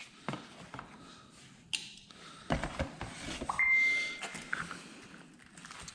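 Oil change kit packaging being opened and handled: scattered clicks and rustling, with a short steady high-pitched tone lasting under a second about three and a half seconds in.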